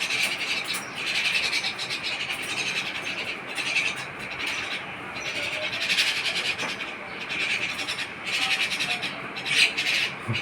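Small birds chirping in a dense, continuous high-pitched twitter, with louder bursts now and then: chicks calling as they are fed.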